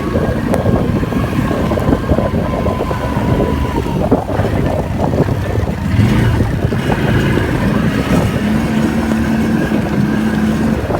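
ATV engine running while riding, a steady loud drone whose pitch shifts as the throttle changes.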